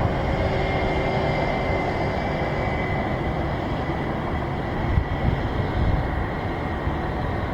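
Steady jet aircraft engine noise with a faint high whine, mixed with gusty low rumble from wind on the microphone.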